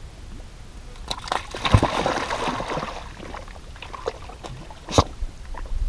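A dog plunging into shallow lake water: a splash about a second and a half in, then sloshing and splashing for about a second as it moves into the water. A single sharp knock near the end.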